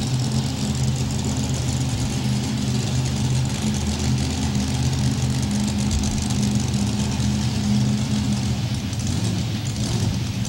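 Supercharged mini rod pulling tractor engine idling steadily while the tractor rolls at low speed. The note thins out about two seconds before the end.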